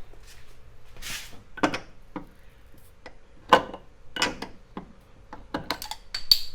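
Glass beer bottle being pried open against a car's bodywork: a short hiss of escaping gas, several sharp knocks and clinks of glass and metal, and near the end a clatter as the metal cap lands and starts ringing.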